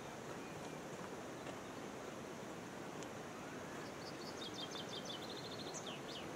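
Steady outdoor background hiss, with a small bird singing in the second half: a run of quick high chirps, a fast trill, then a couple of falling notes.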